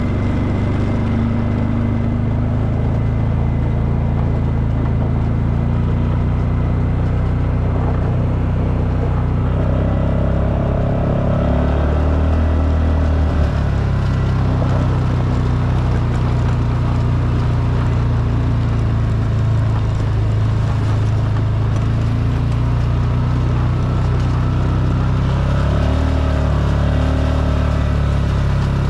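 Four-wheeler (ATV) engine running steadily as it is ridden, its note rising and falling a little with the throttle.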